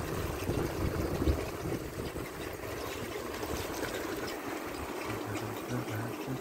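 Wind buffeting the microphone of a moving motorcycle, with the motorcycle's engine running underneath; a low, steady engine note comes through more clearly near the end.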